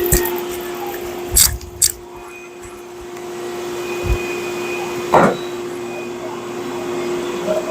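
A woodshop machine running with a steady hum and an airy rush, like a vacuum, between cuts in black walnut. A few separate knocks and clunks come over it, the loudest a little past the middle.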